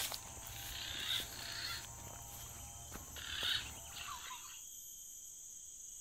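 Insects droning steadily at a high pitch, with a couple of short rustling sounds in the first few seconds.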